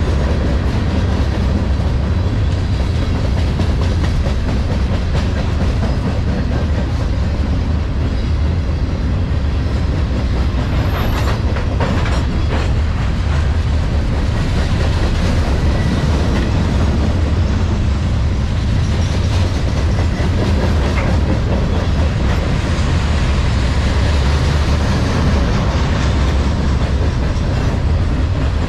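Freight train of gondolas loaded with steel pipe rolling past, a steady loud rumble of wheels on rail with clickety-clack over the rail joints, the clicks thickest around the middle.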